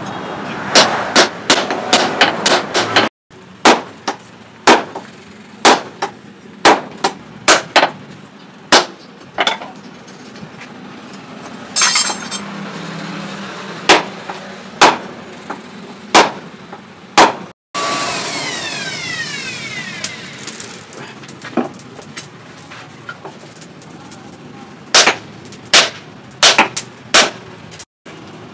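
Hammer blows on steel, struck in irregular runs of sharp metallic impacts, some ringing briefly after the strike, with the run broken by abrupt cuts.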